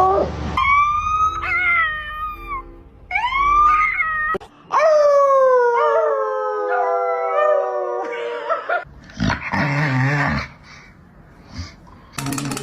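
Dog howling: long drawn-out calls that rise and then slide down in pitch, with two howls overlapping from about five seconds in. A short rough noise follows about nine seconds in.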